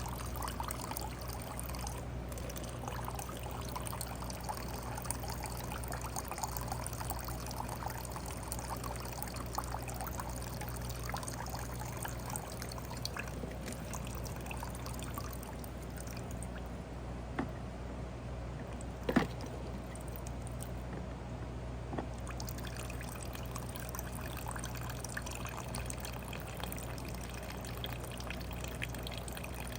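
Old, dirty gasoline trickling steadily from a small engine's gas tank, its fuel line pulled off, into a cup, with one short knock about 19 seconds in.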